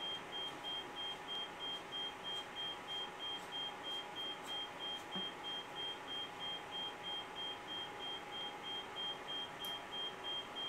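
Oscilloscope beeping: a regular series of short, high-pitched beeps, about two and a half a second, which the owner calls one of the instrument's quirks.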